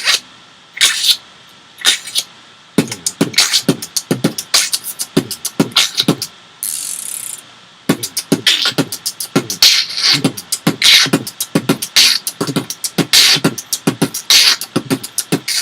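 Beatboxer's mouth snare: three lone hits, then from about three seconds in worked into a fast beatbox rhythm of short percussive strokes, with a held hiss about seven seconds in.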